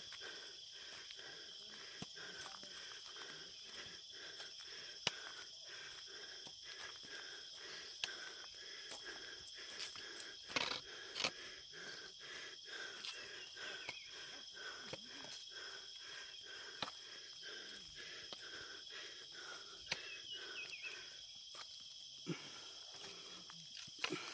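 Insects, crickets or cicadas, shrilling steadily and high-pitched in a regular pulsing rhythm, with a few faint clicks.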